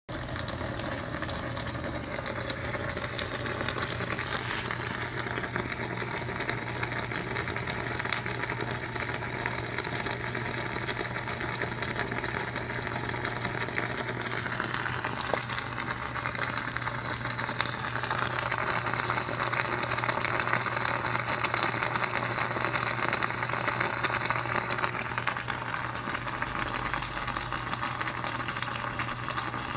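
A homemade water electrolysis cell, fed 240 V AC through a bridge rectifier and a charging choke, running with a steady electrical hum under a dense crackling, fizzing hiss as the water is heated and split into gas. The fizzing grows a little louder past the middle.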